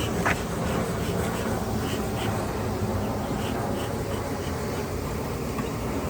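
Honeybees buzzing steadily in a dense hum around an opened hive.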